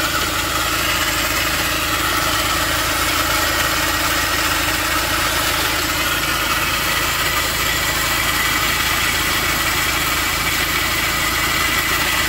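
Car engine idling steadily, with the noise of the accessory belt's tensioner pulley running on worn bearings. The pulley drags on the belt, which is damaging the crankshaft pulley.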